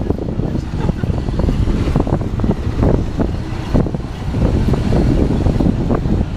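Parking-lot passenger tram in motion, heard from on board: a steady low rumble with frequent small rattles and knocks.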